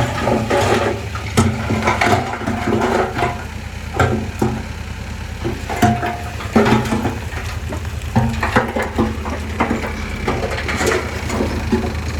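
Heavy earth-moving machinery at work: a diesel engine running steadily under irregular clanks, knocks and crunching.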